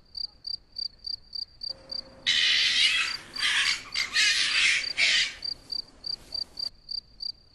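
Cricket chirping steadily, about three short high chirps a second, with a loud rustling noise in several bursts from about two to five seconds in.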